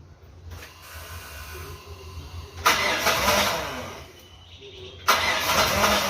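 Rebuilt Mitsubishi 6G72 V6 engine turned over on the starter in two bursts, a short one and then a longer one, each starting abruptly.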